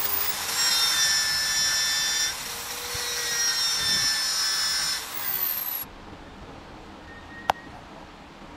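Electric power driver spinning a socket on the nuts of a car alternator's rectifier assembly: a steady whine with a hiss over it that changes level a few times and stops suddenly a little before the end. A single sharp click follows shortly after.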